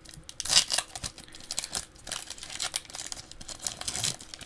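Foil wrapper of a Pokémon Sword and Shield booster pack crinkling as it is handled and torn open: a run of irregular crackles, loudest about half a second in.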